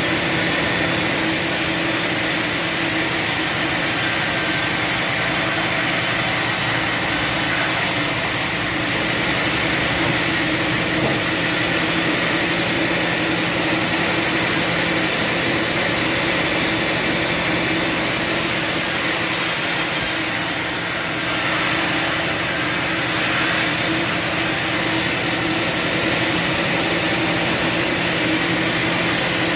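Bandsaw sawmill running and sawing through wood: a steady sawing noise over the mill's even engine hum, easing briefly about twenty seconds in.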